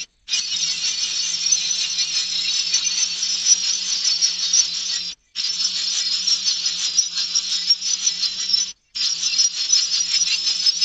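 Baby birds' begging calls: a dense, high-pitched chattering that runs on without pause. It cuts off abruptly twice, where the recording is spliced.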